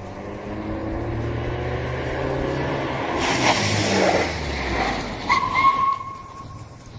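Motor vehicle engine sound effect: an engine running with its pitch slowly rising, a louder rushing stretch midway, and a short high steady tone near the end.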